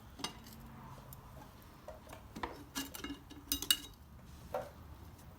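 Light metallic clicks and clinks of a small screwdriver tip working against a Harley touring bike's rear brake caliper and pads, prying to push the caliper pistons back. The clicks come irregularly, the loudest a little before four seconds in.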